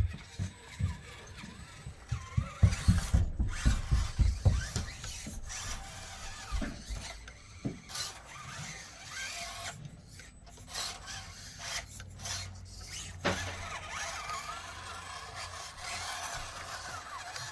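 Axial SCX24 micro crawler's small electric motor and drivetrain whirring, squeaking and clicking in short spurts as it strains while wedged. The driver blames the trouble on a busted dog-bone driveshaft. Dull low thumps come thickly between about two and five seconds in.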